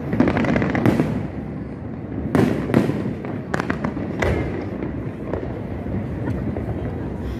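Aerial fireworks shells bursting in a display: a sharp bang about a second in and a cluster of bangs between about two and four and a half seconds, over a continuous rumble and crackle of the show.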